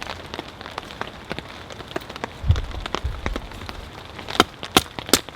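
Rain falling, with sharp drops tapping close by, coming faster near the end, and a dull thud about midway.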